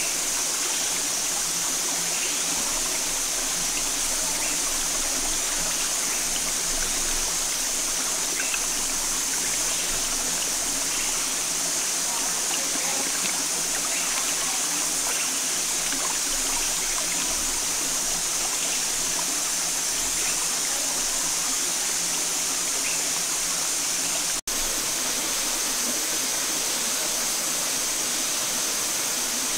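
Shallow rocky stream running steadily, with light splashing as a plucked bird is washed in the water. The sound drops out for an instant about three-quarters of the way through.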